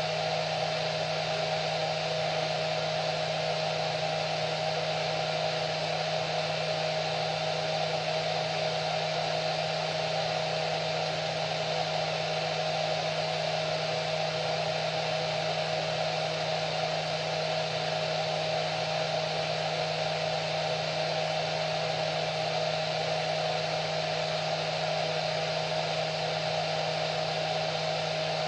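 Electric hair dryer running steadily: a constant airy rush with a steady motor whine.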